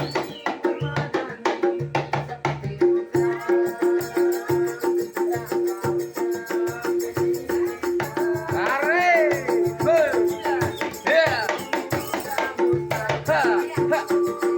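Street buskers' music: a steady rhythmic beat of drum hits and shaker rattle under a repeating pulsed tone, with a voice singing with vibrato over it about halfway through.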